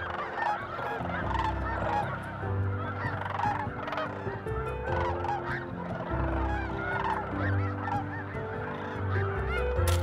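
A large flock of snow geese calling at once: a dense, unbroken chorus of overlapping honks.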